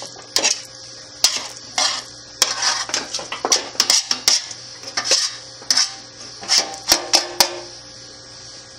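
Cooked chicken bones and carcass pieces dropped and pushed by hand into a spaghetti-cooker pot, clattering against the pot in many quick, irregular knocks, with a brief ring from the pot a little before the end.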